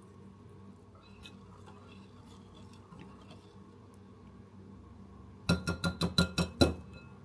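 A mixing utensil stirring quietly in a bowl of custard mixture with faint clinks, then about seven quick, ringing knocks against the bowl near the end, each a bright ring.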